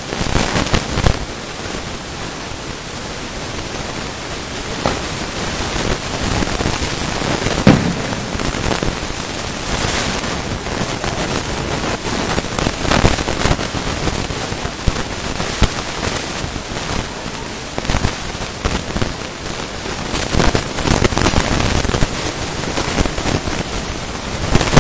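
Fireworks display: a continuous dense crackling, like rain, with scattered pops and a few heavier bangs, the strongest about eight seconds in.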